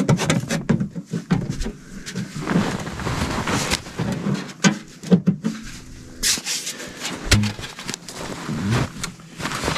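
Metal stovepipe sections being handled, clanking and scraping against each other with irregular knocks and rattles.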